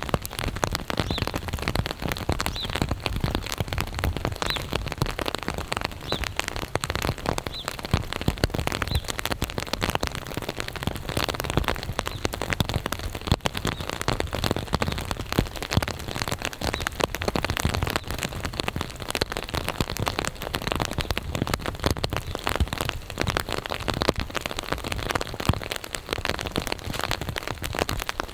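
Steady rain: a dense, close patter of many drops.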